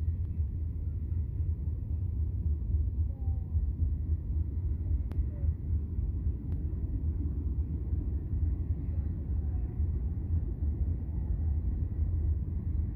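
Freight train cars rolling past on the track: a steady low rumble of steel wheels on rail.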